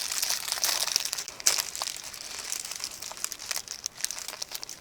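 Packaging crinkling and crackling in the hands as a squishy is unwrapped and pulled out, a dense run of small crackles and clicks.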